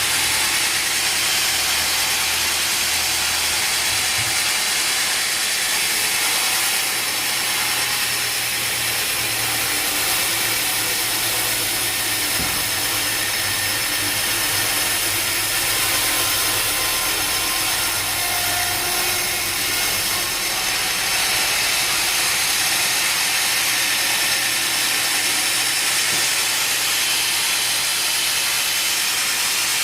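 Sawmill machinery running steadily: a loud, even hiss over a low motor hum, with no pauses.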